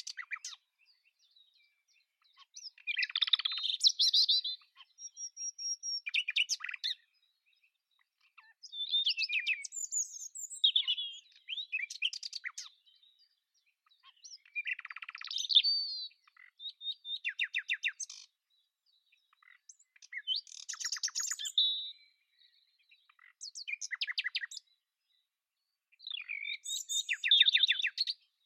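A nightingale singing: a run of varied song phrases, each a second or two long with short pauses between, many of them fast rattling trills of repeated notes.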